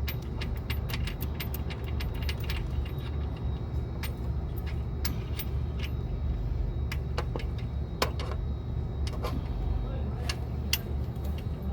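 Irregular metallic clinks and knocks as a starter motor is wiggled loose by hand from its mounting on a Nissan 240SX engine, over a steady low rumble.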